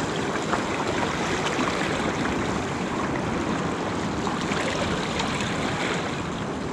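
Small waves washing and gurgling against the shoreline rocks, a steady wash of water.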